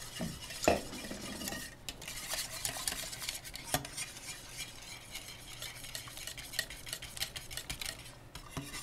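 A wire whisk beating thick cheese sauce in a stainless steel saucepan, working the last of the shredded cheese into the roux-based sauce. It makes a steady run of quick scraping and ticking, with a few sharper knocks of the whisk against the pan.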